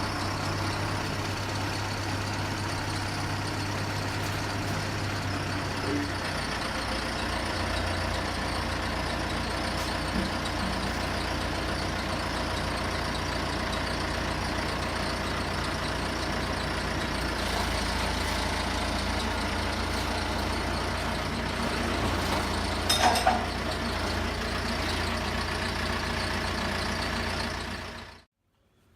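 Large vehicle engine running steadily, with a short louder clatter late on.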